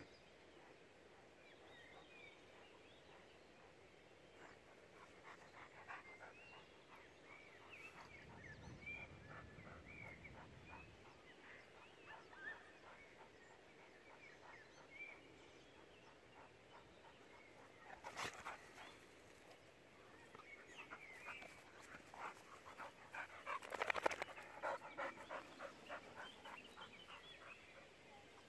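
A boxer and a pitbull panting, with quick breaths that come in runs and are loudest about three-quarters of the way through.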